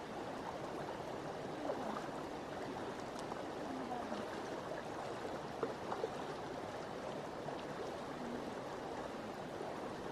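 Shallow stream running over stones in a steady rush, with a few short splashes of someone wading across barefoot, about two seconds in and again around the middle.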